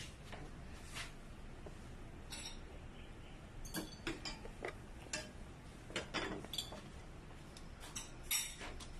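Scattered light metallic clinks and taps of pots and kitchen utensils over a low steady background, most of them in the second half.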